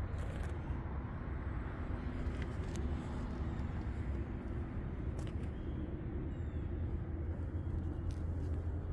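Chevrolet Trailblazer SS's 408 stroker V8, built on an LQ9 iron block with a stage 3 camshaft and long-tube headers, idling steadily with a low rumble. A few light clicks sound over it.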